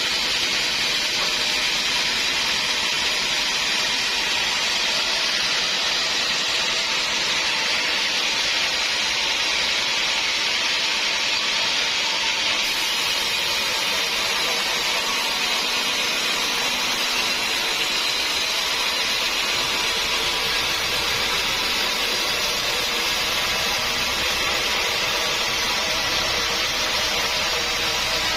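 Sawmill running steadily with a loud, even hiss as the saw cuts through hard acacia wood, with no break or change in pitch.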